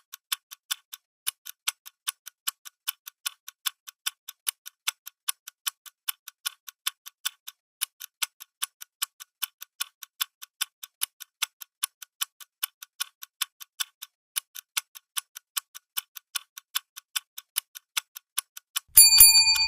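Clock ticking steadily as a countdown timer's sound, about four quick ticks a second. Near the end a bright ringing chime sounds suddenly over the ticking, the loudest sound here, as the five-minute countdown reaches zero.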